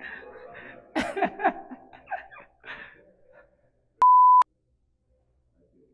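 A short, loud, steady test-tone beep of the kind that accompanies broadcast colour bars, lasting about half a second, about four seconds in. Before it, a man's voice is heard briefly.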